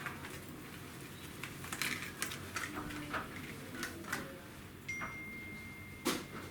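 Scattered light clicks and taps of small hard parts being handled as laptop RAM modules are worked on in the open chassis, with a sharper click near the end. A thin steady high tone comes in about five seconds in.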